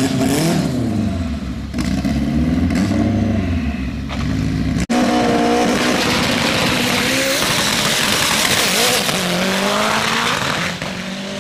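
Street-race car's engine revving up and down in repeated blips, then launching: a dense rush of engine and tyre noise as it accelerates away, the engine pitch climbing, fading near the end.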